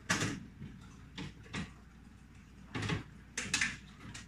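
Knocks and clatters of food containers and jars being moved about on the shelves of an open refrigerator, about six short sharp ones in a few seconds, over a low steady hum.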